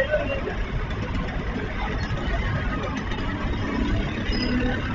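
Busy street noise: motor vehicle engines running, with the voices of a crowd mixed in.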